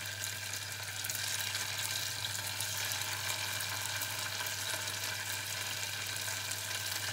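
Tofu cubes frying in a little hot oil in a small pot: a steady sizzle with fine crackling, over a steady low hum.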